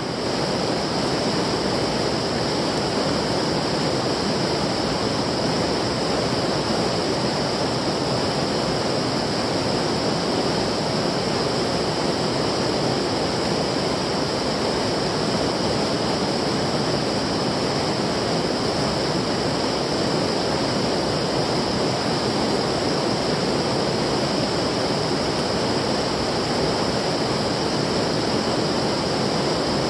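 Flowing stream water making a steady, unbroken rush.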